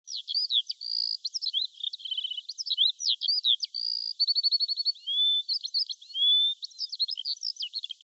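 A songbird singing a fast, varied song of short chirps, clear whistled notes and rapid trills, which cuts off abruptly at the end.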